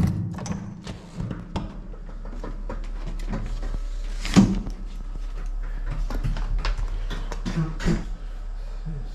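Clicks, knocks and thuds of doors and things being handled in a small room, the loudest a sharp bang about four seconds in, over a steady low hum.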